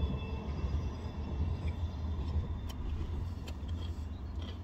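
Steady low rumble inside a car cabin, with a few faint clicks from chewing a bite of a wrap.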